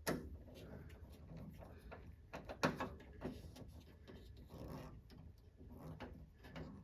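Faint scattered clicks and small metal taps from a Phillips screwdriver working a screw with its lock washer and washer into a car door handle, with a sharper click near the start and a few more close together a little before halfway.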